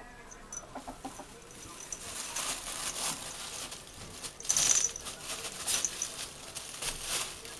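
A thin plastic shopping bag crinkling and rustling in bursts as a ferret burrows into it, loudest a little past halfway. Small metallic tinkles from the ferret's collar come in a few times.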